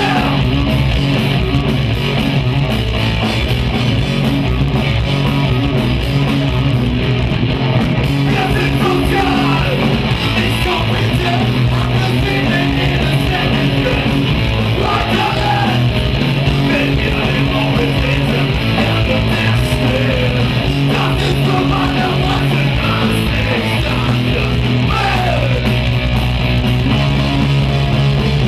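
Live rock band playing loud, guitar-driven punk rock, with sung and shouted vocals at times.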